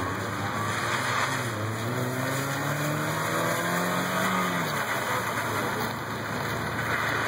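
Chevrolet Optra's engine revving hard as the car accelerates through a cone course. The pitch climbs steadily for about three seconds, then drops as the driver lifts off about four and a half seconds in. Tyres hiss on the wet tarmac underneath.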